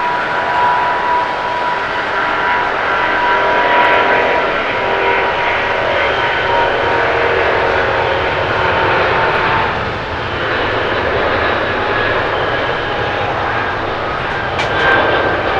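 Boeing 777-200ER's twin turbofan engines at takeoff thrust as the airliner accelerates down the runway: a loud, steady jet roar with whining tones over it.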